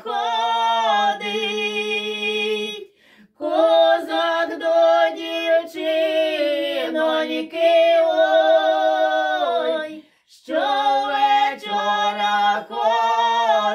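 Two women singing a Ukrainian folk song unaccompanied, their two voices together in long drawn-out held notes, with short breaths about three and ten seconds in.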